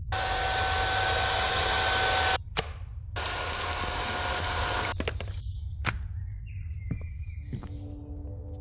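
Vacuum cleaner motor running, a steady hissing rush with a thin whine. It cuts off abruptly about two seconds in, starts again a moment later, then dies away.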